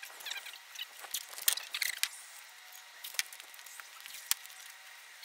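Thin polyethylene sheet crinkling with quick, irregular crackles as hands smooth it flat over a wooden board.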